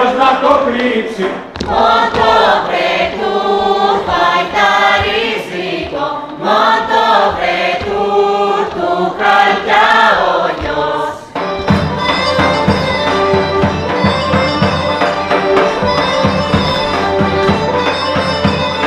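A group of voices singing a Thracian folk dance song in unison. About eleven seconds in, the singing stops and the band comes in with the droning gaida bagpipe over steady daouli drum beats.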